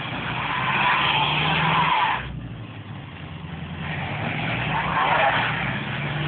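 Lorry's diesel engine revving under load while its drive wheels spin on snow, the tyres whirring and hissing. The wheelspin cuts off sharply about two seconds in and builds up again a couple of seconds later.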